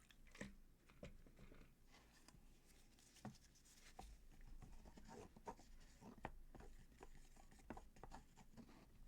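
Faint scraping and light taps of plaster of Paris being stirred in a cup after a little water is added.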